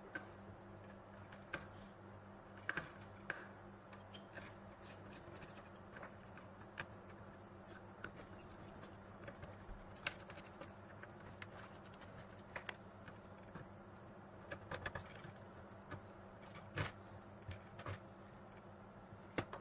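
Faint, irregular clicks and taps of hands and a screwdriver working on a laptop's CPU heatsink and fan assembly as it is unscrewed and lifted off the mainboard, over a low steady hum.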